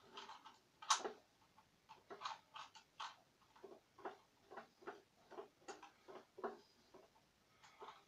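Rubik's cube being turned quickly in the hands: an irregular run of short plastic clicks, about two or three a second, with one louder clack about a second in.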